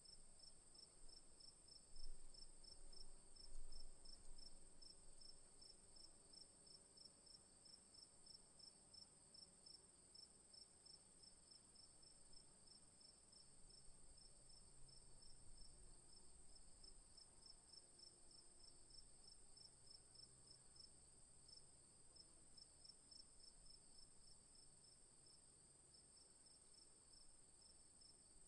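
Faint night insects: a steady high-pitched trill with a cricket chirping in an even pulse, about two to three chirps a second. Two soft low thumps come about two and three and a half seconds in.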